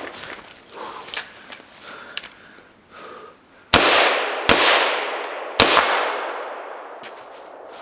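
Three rifle shots, the first about halfway through and the next two following at under a second and about a second apart, each trailing off in a long fading echo. Light clicks and rustles of handling come before them.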